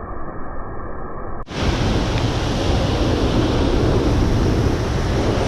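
A muffled, steady rushing noise cuts off about a second and a half in. It gives way at once to the loud, steady roar of a waterfall, with wind buffeting the microphone.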